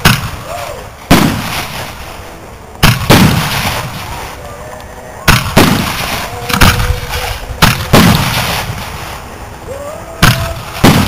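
Large aerial firework shells, about 5-inch, bursting in a display: about ten loud booms at irregular intervals, each trailing off in a rumbling echo.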